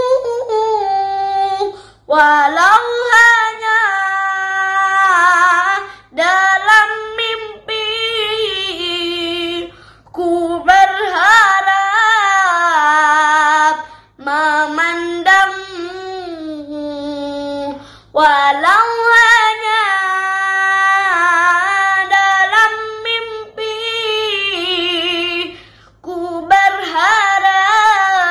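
A boy singing an Arabic devotional song (qasidah/sholawat) solo and unaccompanied in a high voice. He sings in phrases of a few seconds each, with long, ornamented held notes and short breaths between them.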